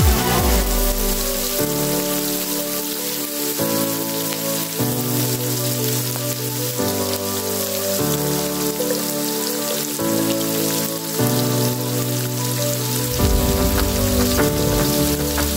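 Food frying in hot oil in a pan, a steady sizzle, over background music of held chords that change every second or two.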